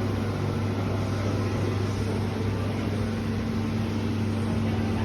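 Refrigeration equipment running: a steady mechanical hum with a strong low drone and a fainter, higher steady tone over fan-like noise.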